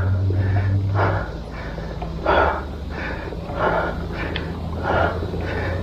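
A cyclist breathing hard while pedalling up a steep climb: heavy exhalations about once every second and a half, the sign of hard exertion near the top of the hill.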